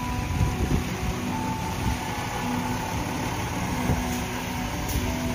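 City bus driving through a flooded street: a steady low engine rumble.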